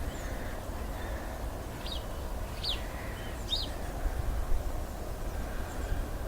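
A small bird chirping three times, short high notes a little under a second apart, over a steady low rumble of outdoor background noise.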